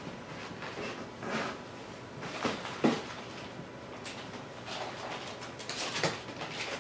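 Christmas wrapping paper crinkling and tearing as gift packages are handled, in scattered short rustles with a couple of louder knocks, about three seconds in and again near the end.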